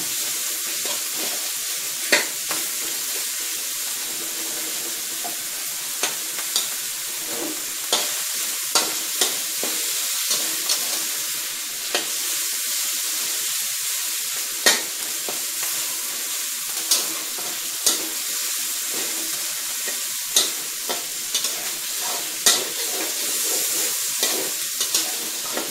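Pork belly pieces sizzling in hot oil in a wok as their fat renders out, with a metal spatula scraping and clinking against the wok every second or two.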